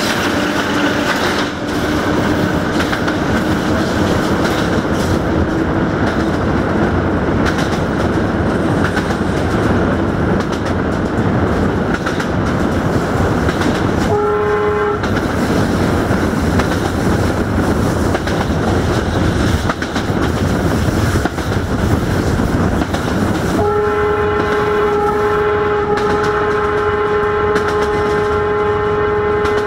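LDE2100 (060-DA) diesel-electric locomotive under full throttle, its Sulzer 12LDA28 engine running loud with the wheels clattering over the rails. The locomotive's horn sounds for about a second halfway through, then gives a long steady blast over the last six seconds.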